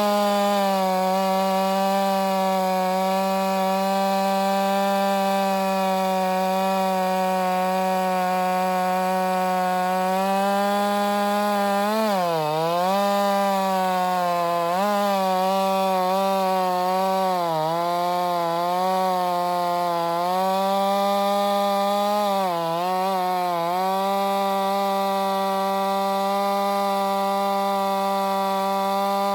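Ported Stihl MS 462 two-stroke chainsaw with a 28-inch bar running at high revs while cutting through large wet spruce. The engine pitch holds steady, then dips briefly several times in the middle as the chain loads up in the wood, recovering each time.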